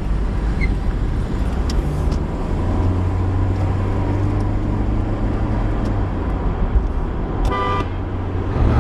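Street traffic with car engines running and a low engine drone. About seven and a half seconds in, a car horn gives one short honk at a car blocking the intersection.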